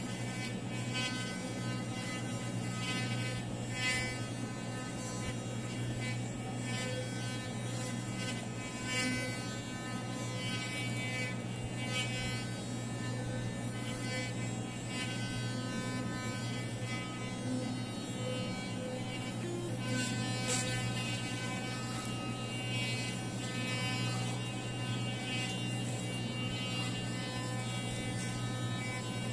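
Electric toothbrush running with a steady buzz while brushing teeth.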